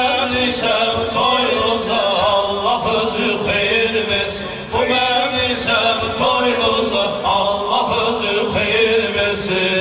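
Male voice chanting an Islamic devotional hymn (ilahi) in a wavering, melismatic line over steady held synthesizer chords.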